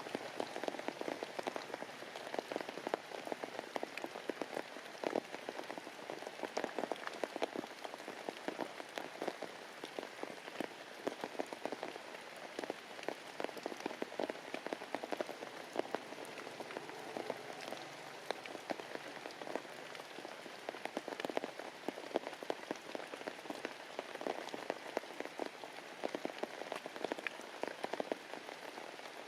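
Heavy rain falling steadily, a dense patter of individual drops striking a surface.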